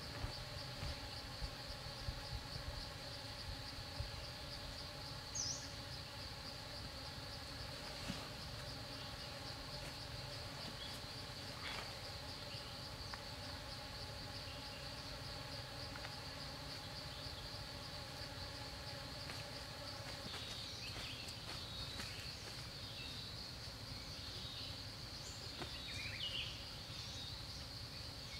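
A steady, high insect trill over a low rumble of forest ambience, with a few faint bird chirps in the second half.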